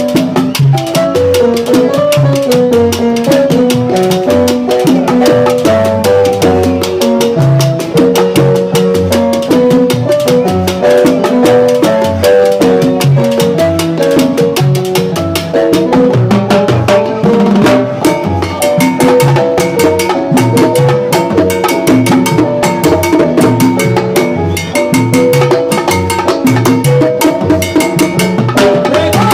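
Live salsa band playing, with congas struck by hand and timbales and cymbal played with sticks loud and close, over a stepping melody line.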